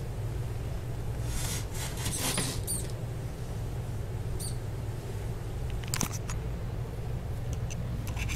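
Steady low hum with faint rustling and scraping, a short high squeak about four seconds in and a sharp click about six seconds in.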